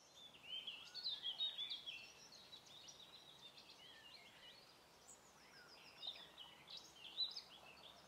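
European goldfinches twittering: a fast, continuous run of high chirps and short trills. It is loudest in the first couple of seconds and again briefly near the end.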